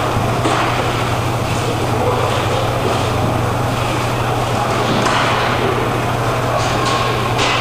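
Roller hockey play on a plastic sport-court floor: inline skate wheels rolling and scraping, over a steady low hum. A few sharp clacks of sticks and puck come about five seconds in and twice near the end, and there are distant shouted voices.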